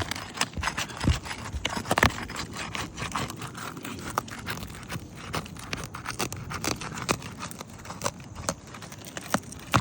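A roof snake working under an architectural asphalt shingle to loosen and pull a roofing nail: irregular sharp clicks and knocks over steady scraping.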